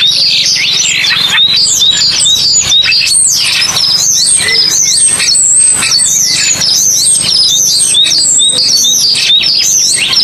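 Many birds chirping at once: a dense, unbroken chorus of short, high, mostly falling chirps.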